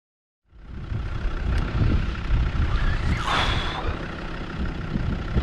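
Wind buffeting an outdoor microphone, an uneven low rumble that starts suddenly about half a second in, with a brief hiss a little past the middle.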